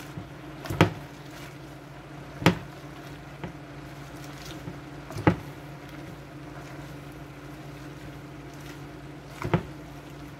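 A utensil knocking against a large cooking pot as collard greens are mixed in it: four sharp knocks at uneven spacing, over a steady low hum.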